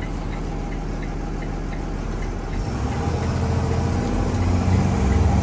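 School bus engine running with its engine cooling fan engaged, a loud roar in the driver's cab that grows louder about two and a half seconds in. A light regular ticking, about three a second, runs under it in the first half.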